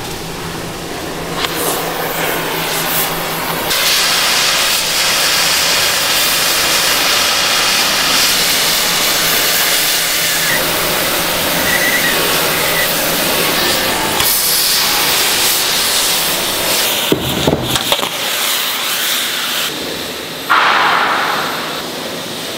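Steel excavator boom being heated and welded: a gas torch flame hissing, then a long stretch of steady hiss and crackle from welding along a seam. Near the end a few sharp knocks and a sudden louder noise break in.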